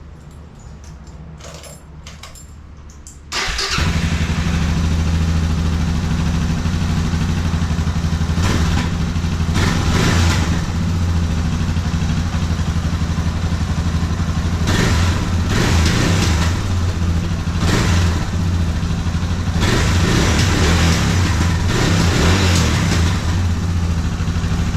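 Suzuki DR650's single-cylinder four-stroke engine starting about three seconds in, then running steadily so the fresh oil circulates after an oil change.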